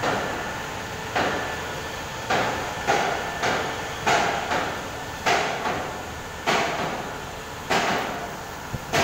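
Footsteps of a person walking on a gritty asphalt road, each step a short scuffing impact at a walking pace, over a steady background hum.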